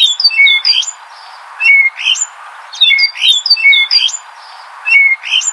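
Common starling calling: groups of quick, high chirps and whistled notes that sweep up and down, with short pauses between groups, over a steady background hiss.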